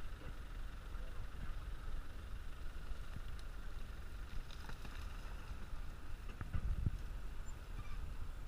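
Land Rover Defender engine running with a steady low rumble as the 4x4 crawls slowly over rough ground, with a louder low thump around six and a half seconds in.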